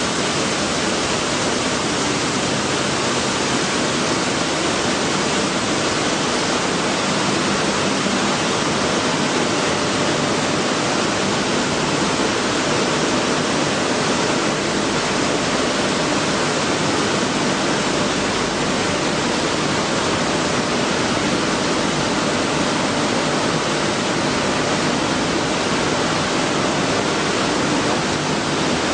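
Wheat flour milling plant machinery running: a loud, steady, even noise with no distinct rhythm or tone.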